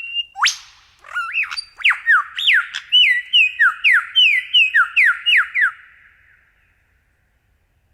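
A bird's whistled song: a held note, a quick upward sweep, then a run of about a dozen clear whistles that each slide downward, two to three a second, fading out about six seconds in.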